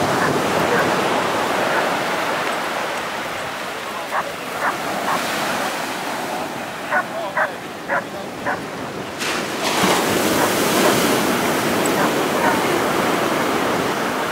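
Ocean surf breaking and washing up the beach, with a golden retriever barking in short, sharp barks: a few about four to five seconds in, then a quicker run of them about seven to eight seconds in.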